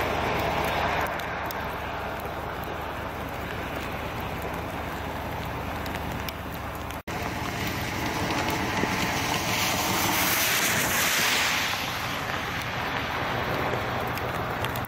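Steady outdoor wind noise with fine ticking, cut off for a moment about seven seconds in and swelling louder about ten seconds in.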